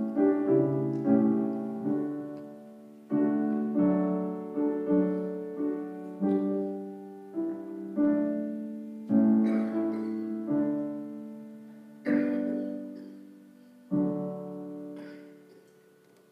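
Piano playing slow, quiet chords one after another, each struck and left to ring. The last chord, about fourteen seconds in, fades away.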